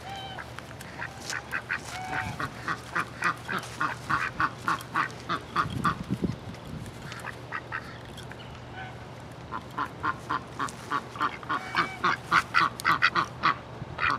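A domestic duck quacking in quick runs of short quacks, about four to five a second. The runs pause briefly twice.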